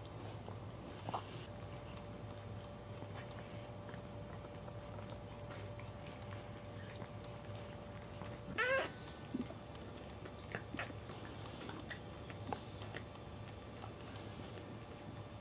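Newborn Cairn Terrier puppies squeaking: a few short, high squeaks, with one louder rising cry about halfway through.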